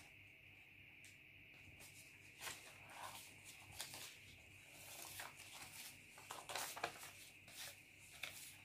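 Faint rustling and light taps of cut paper pattern pieces being handled and slid over a notebook, busiest in the second half, over a faint steady high hiss.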